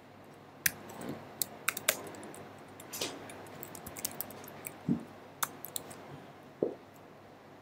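Typing on a computer keyboard: irregular, scattered keystrokes, some single and some in short quick runs.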